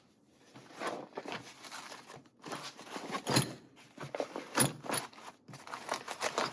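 Open motorcycle tool kit case being moved and repositioned by hand: continual rustling and scraping of the case fabric, with a couple of sharper knocks as the tools inside shift.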